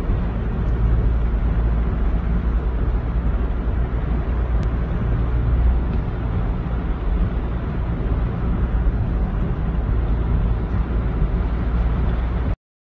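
Fast-flowing muddy floodwater rushing across a road in heavy rain: a steady rushing noise with a deep rumble underneath. It cuts off suddenly near the end.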